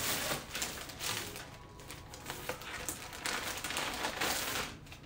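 Rustling and crinkling of clothing and its packaging being handled and unfolded, with scattered small clicks.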